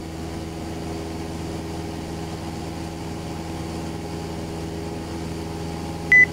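Piper Cherokee's piston engine and propeller droning steadily at climb power, heard from inside the cabin.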